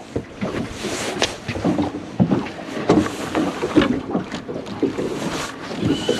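Irregular knocks and clunks of handling and gear on a small fishing boat, over wind and water noise. Just before the end a high, steady beep starts.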